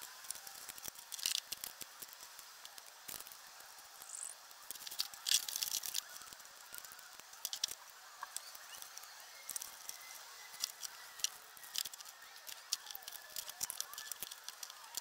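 Scattered small clicks, taps and light rattles of hands working on a small model-aircraft petrol engine on its test stand, handling the carburettor and fuel lines; the engine is not running.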